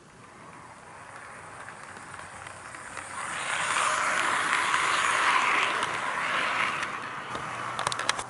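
HO-scale KATO EF81 electric locomotive and coaches running on model track past the microphone: the motor whir and the wheels rolling on the rails grow louder, are loudest about four to six seconds in, then ease off. A quick run of sharp clicks comes near the end.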